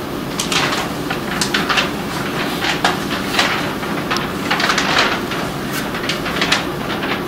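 A large folded paper certificate being unfolded and opened out by hand: irregular rustles of stiff paper, over a steady low room hum.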